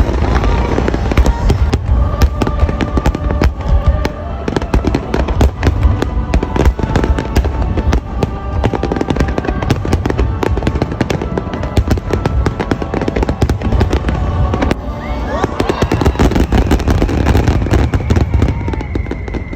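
Fireworks display: a dense, continuous barrage of booming shell bursts and sharp crackling reports.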